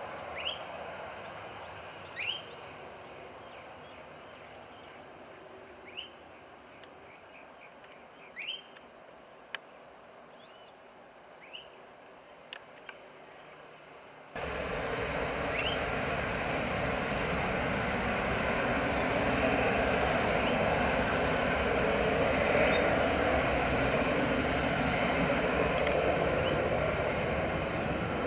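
Birds chirping over a faint, fading hum. About halfway through, the sound cuts abruptly to the loud, steady noise of an aircraft's engines.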